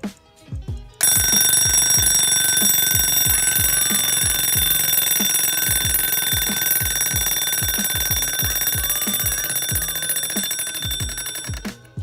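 Bell of a wind-up Slava mechanical alarm clock ringing continuously, the hammer buzzing rapidly against the bell with several high clear tones. It starts about a second in and cuts off suddenly near the end. Background music with a steady beat plays underneath.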